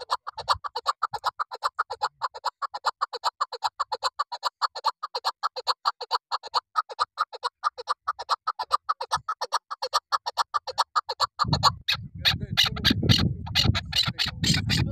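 Female chukar partridge (chakor) calling: a fast, even series of short clucking notes, about six or seven a second. About eleven seconds in, the clucking stops and a louder low rumble with sharp clicks takes over.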